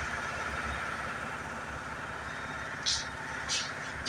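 Washing machine on its spin cycle near the end of the wash, running with a steady hum. From about three seconds in, a short hissing swish repeats about every two-thirds of a second.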